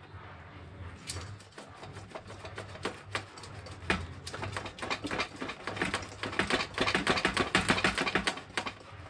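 Rapid runs of metallic clicks from a hand ratchet wrench working fasteners on a motorcycle, growing into fast, near-continuous ratcheting about six seconds in.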